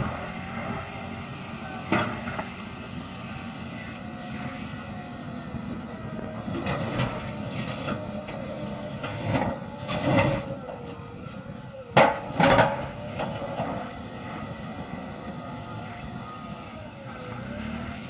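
Caterpillar D6T bulldozer's diesel engine running steadily, its pitch drifting up and down, with a sharp knock about two seconds in and louder clanks around ten and twelve seconds in.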